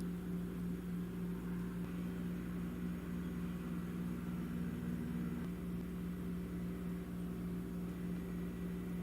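A steady low hum made of several fixed tones, one of which drops out about five and a half seconds in.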